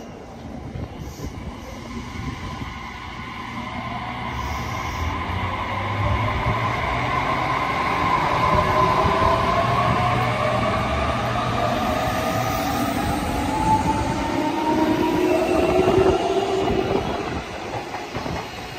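JR Kyushu 817 series and 813 series electric multiple unit pulling out of the station, its electric traction motors whining and rising in pitch as it accelerates over a growing rumble of wheels on rail. The sound fades as the last cars pass near the end.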